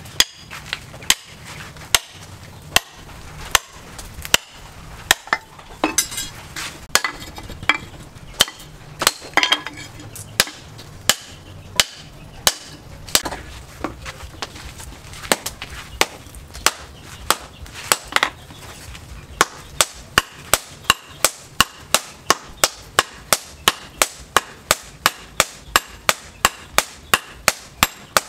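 Hand hammer blows on red-hot car-axle steel on an anvil, forging an axe head: sharp metallic strikes at about one a second, quickening to about two a second for the last third.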